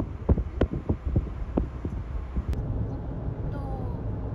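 Car running on a highway with a steady low road rumble. In the first two seconds it is overlaid by a quick run of low thumps, about three a second.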